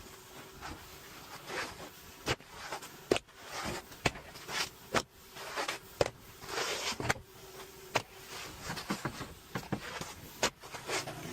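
Pneumatic roofing nail gun firing, with sharp irregular shots about a second apart, and shingles rustling and scraping between them.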